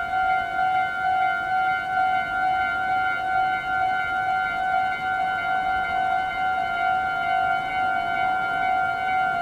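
Japanese railway level-crossing warning bell ringing: a steady electronic clang repeating rapidly at one pitch, the signal that a train is approaching and the crossing is closed.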